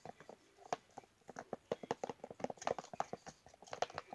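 Slime mixture being stirred in a bowl, the stirring utensil knocking against the bowl in quick, irregular clicks and taps.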